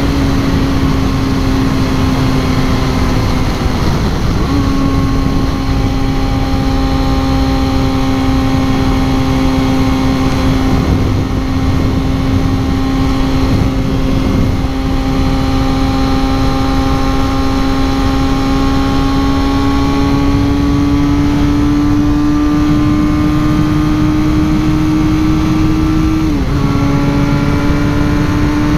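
Supersport motorcycle engine running at steady highway cruising speed under heavy wind and road rush. The engine note dips briefly about four seconds in, then creeps up in pitch, drops abruptly near the end as the gear changes and climbs again.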